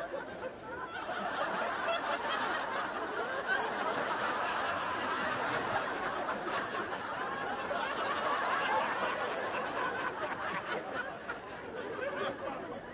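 Studio audience laughing, swelling about a second in and easing off near the end.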